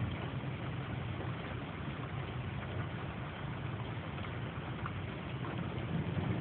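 Thunderstorm noise: a steady low rumble with a hiss over it, growing a little louder near the end.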